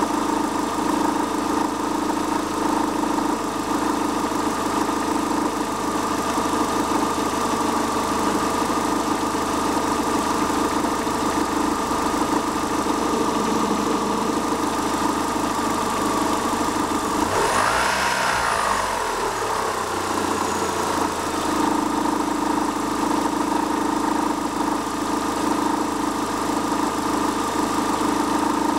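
Astra G's 1.6 16V Ecotec petrol engine (X16XEL) idling with a rattling, rumbling vibration. It is revved briefly about two-thirds of the way through and drops back to idle. The vibration appears only at idle and below 1200 rpm and is still there with a new cambelt, tensioner, idlers and water pump; the owner takes it for some part vibrating in resonance.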